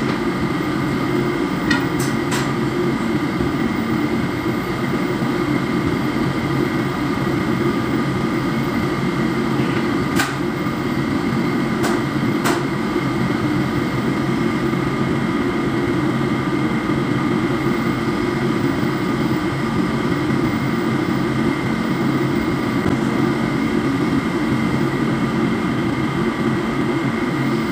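Steady drone of a ship's running machinery: a low hum with several steady tones above it. A few sharp clicks come in the first half.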